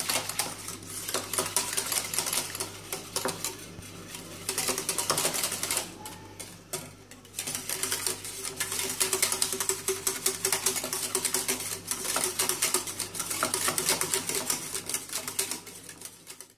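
Wire whisk beating a thin milk mixture in a small stainless-steel saucepan: fast, steady rattling and clicking of the wires against the pan, with a short pause about six seconds in.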